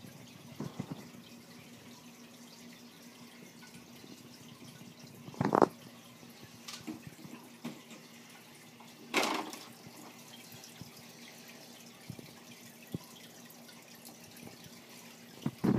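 Aquarium filter running: a steady trickle of water with a faint low motor hum. Two short, loud bumps break in, about five and nine seconds in.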